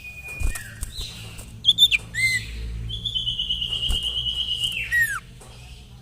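Sirtu (common iora) calling. A few short, sharp, sweeping notes come about two seconds in, followed by a long whistle held for about two seconds with a fine trill, which drops in pitch at the end.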